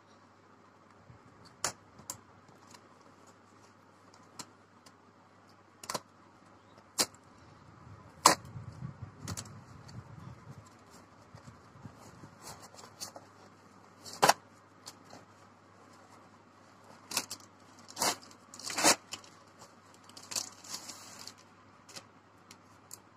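A hair straightener's cardboard box and plastic packaging being opened and handled: scattered sharp clicks and taps, with rustling about eight seconds in and a crinkly rustle around twenty seconds in.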